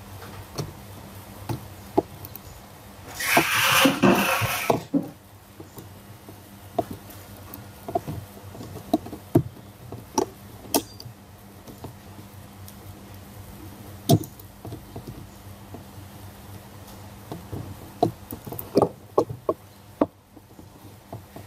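Scattered clicks and knocks of hands handling the opened Acer Aspire One netbook's casing and motherboard, over a faint steady hum. About three seconds in there is a louder rush of noise lasting about a second and a half.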